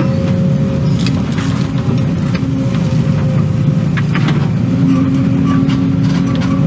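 Excavator's diesel engine running steadily under working load, with a few light knocks about a second in and again around four seconds.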